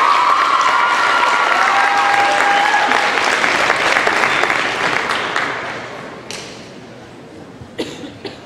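Crowd applauding and cheering, with high shrieks over the clapping during the first three seconds. The applause dies away about six seconds in, leaving a few scattered knocks.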